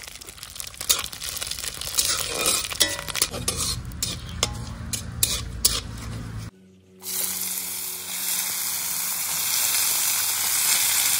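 Whole spices (panch phoron, dry red chillies, bay leaf) sizzling in hot oil in a kadhai while a spatula stirs them, with many sharp pops and clicks. After a cut about six and a half seconds in, a steady, louder hiss of chopped vegetables frying in the oil.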